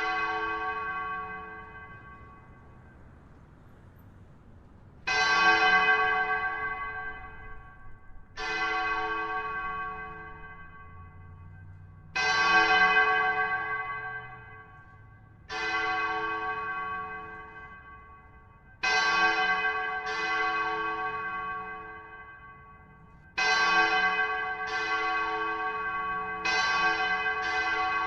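A large church-type bell is struck about ten times, each stroke ringing out with a long fading hum. The strokes come every three to four seconds at first, then quicken into closer pairs toward the end.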